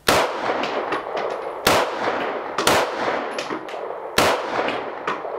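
Canik sfxRIVAL 9mm pistol fired in slow single shots, four shots spaced about a second to a second and a half apart with a fifth at the very end, each followed by a short echo. Fainter clicks fall between the shots.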